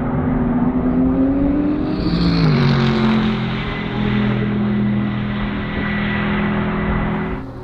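BMW M4 GT3 race car's twin-turbo straight-six engine running. Its pitch drops about two seconds in, then holds a steady note. The sound cuts off abruptly near the end.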